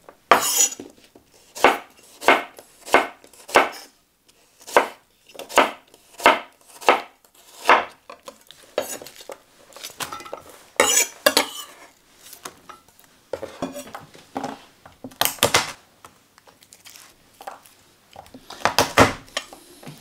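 Chef's knife slicing a red onion on a wooden chopping board, a crisp cut about every two-thirds of a second for the first eight seconds. After that, onion slices are dropped and tossed among cubed aubergine and courgette in a ceramic baking dish: soft rustling with a few louder knocks against the dish.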